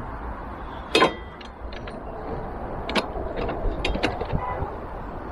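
Irregular clicks and knocks of a metal luggage rack, grab handle and a Torx bit tool being handled as the rack is lined up and a bolt started; the sharpest knock comes about a second in, with a quicker run of clicks later on.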